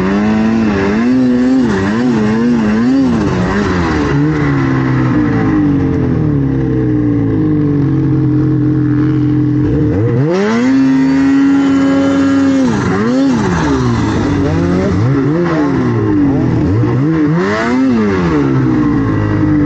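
Snowmobile engine running under load, its pitch rising and falling with the throttle. About ten seconds in it winds up sharply and holds a high, steady rev for a couple of seconds, then drops and comes back in several short throttle blips.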